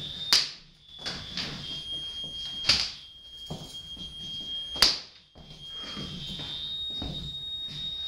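Belts whipped against the floor and walls: three loud sharp slaps about two seconds apart, with lighter slaps in between, over a steady high-pitched electronic tone.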